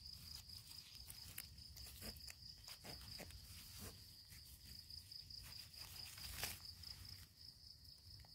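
An insect trilling steadily at one high pitch, faint, with a few light clicks and rustles of hands and a knife working in dry leaf litter.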